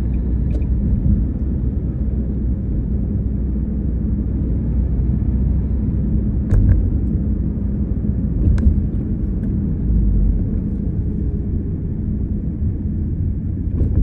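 Steady low rumble of road and engine noise heard from inside a moving car's cabin. Two brief knocks come about six and a half and eight and a half seconds in.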